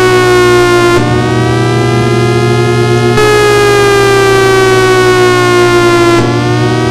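Federal Signal Thunderbolt 1003A civil defense siren sounding a loud, steady chord-like tone. Its pitch sags slowly, dips and recovers, and the tone goes duller and then brighter again about every five seconds.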